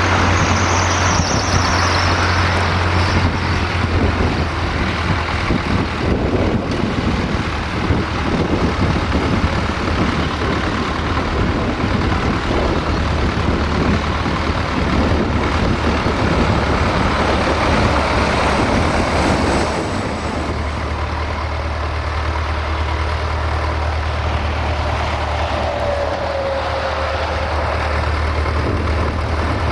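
UTB Universal U650 tractor's diesel engine running steadily as it tows a Tatra KT4DM tram, mixed with road traffic noise that eases about two-thirds of the way through. A short high squeal sounds near the start and a lower one near the end.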